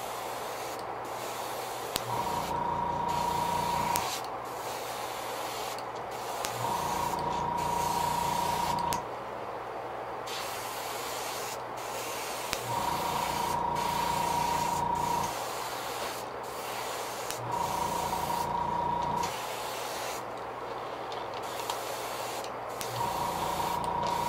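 Airbrush hissing as it sprays paint in short passes, with brief breaks between them. A small compressor motor hums in stretches of about two seconds, starting and stopping five times.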